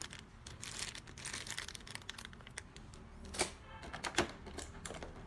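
Clear plastic packaging crinkling and clicking as it is handled: an irregular run of small clicks and crackles, with a couple of louder ticks about three and four seconds in.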